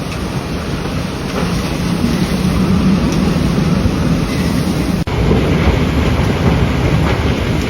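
Loud, steady rush of storm wind and surf, with wind buffeting the microphone. The sound drops out for an instant about five seconds in.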